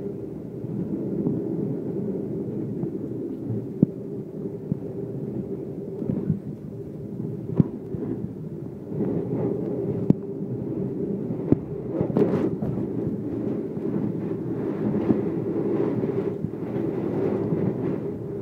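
Passenger train running at speed, heard inside the carriage: a steady low rumble of wheels on rails, with a sharp clack every few seconds.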